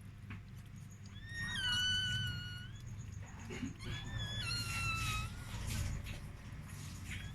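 Two long, high-pitched dog whines, each dropping in pitch near its start and then held, over a low steady hum.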